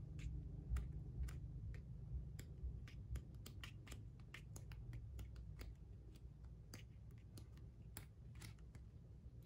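Faint, irregular clicks and flicks of stiff sticker-book pages being turned by hand, a couple a second, over low room hum.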